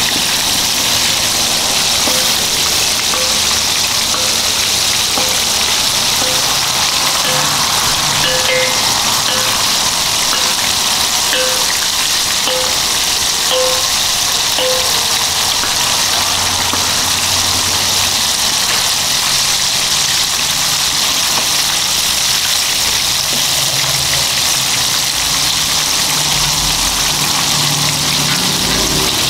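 Food frying in a wok over a gas burner: a steady sizzling hiss as it is stirred. A short high note repeats about one and a half times a second from about two seconds in until about fifteen seconds.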